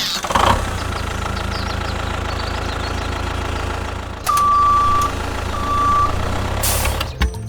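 A truck engine runs at a steady idle, then two long single-pitch beeps sound from a horn or reversing alarm, the first a little longer than the second. A short hiss follows near the end.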